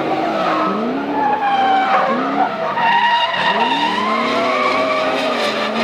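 Two drift cars sliding in tandem, engines revving up and down again and again through the slide, with tyre squeal. One of them is a BMW E30 fitted with the E39 M5's V8.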